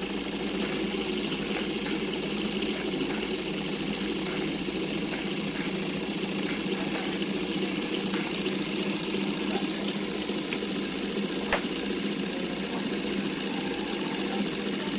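Pathex Model C 9.5mm film projector running steadily under its electric motor, its single-pin claw film-advance mechanism making an even, rapid mechanical clatter. A single sharp click sounds about eleven and a half seconds in.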